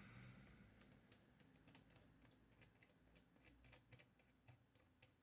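Faint, irregular small clicks and ticks as the side knob that holds the Mercedes Modell 4 typewriter's core in place is turned by hand to release it.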